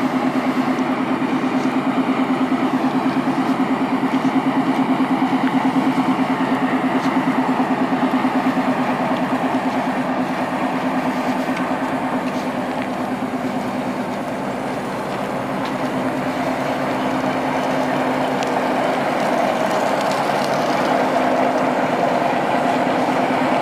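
A TGM4 diesel-hydraulic shunting locomotive running past at low speed. Its diesel engine gives a steady, rapidly pulsing drone that eases a little past the middle and builds again near the end.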